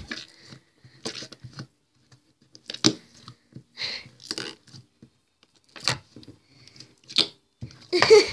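Blue slime being squished and pressed into a plastic tub by hand: scattered wet squelches and sharp clicks, with a few louder snaps, the loudest near the end.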